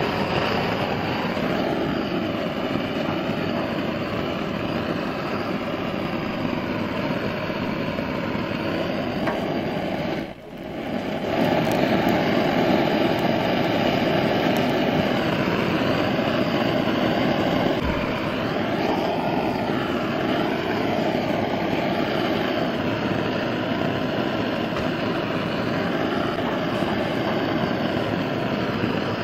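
Gas blowtorch roaring steadily as its flame is played onto lumps of charcoal to light them. The roar drops away briefly about ten seconds in.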